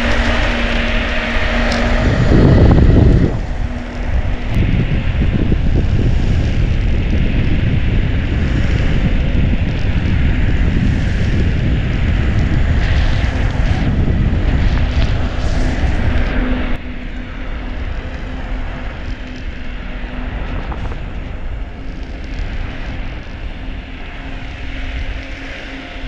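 Wind rushing over the microphone and the Backfire Hammer electric skateboard's air-filled tyres rolling on asphalt at speed, with a steady low hum underneath. A loud gust comes a few seconds in, and the noise drops noticeably about two-thirds of the way through.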